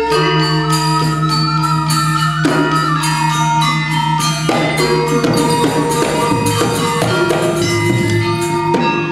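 Balinese gamelan playing: bronze metallophones struck with mallets in dense, ringing patterns over held low tones that shift every second or two, with kendang drums.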